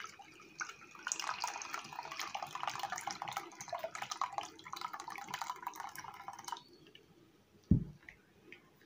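Thick blended lemon juice pouring from a bowl into a plastic mesh strainer, splashing and trickling through into a glass bowl as the pulp is strained out. The pouring stops abruptly about six and a half seconds in, and a single low thump follows about a second later.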